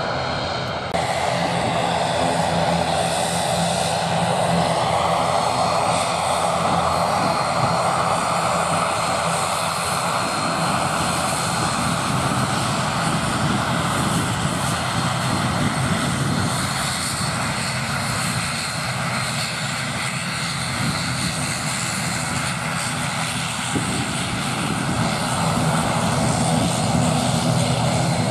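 The two Pratt & Whitney Canada PW127 turboprop engines and propellers of an ATR 42-600 running at taxi power as the airliner rolls past: a steady loud drone with a whine that rises in pitch a few seconds in.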